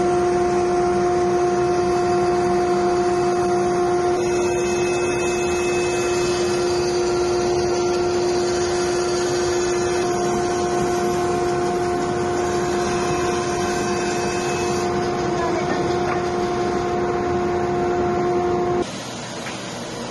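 Band saw running with a steady, even hum while its blade rips a hardwood board into ring-width strips. About nineteen seconds in, it gives way suddenly to a quieter, steady rushing noise.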